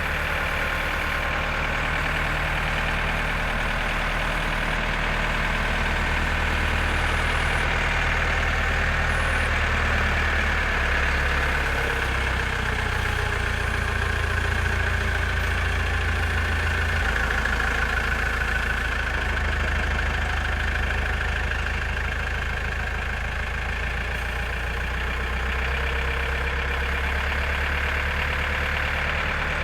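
Diesel engine of a JCB 4CX backhoe loader running steadily, its low pitch shifting a few times as the engine speed changes.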